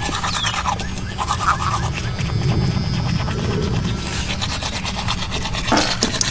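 Manual toothbrushes scrubbing teeth, a fast, steady run of scratchy brushing strokes close by.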